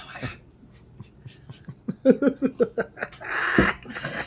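A dog giving a quick run of about six short, high yips about two seconds in, followed by a loud breathy huff.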